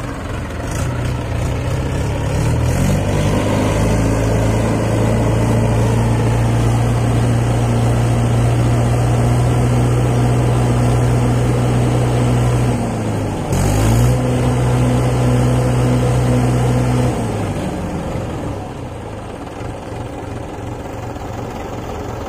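Mahindra 575 DI tractor's diesel engine revving up hard under load as the tractor works in deep mud, held at high revs for over ten seconds with a brief dip and pick-up about two-thirds of the way through, then dropping back toward idle near the end.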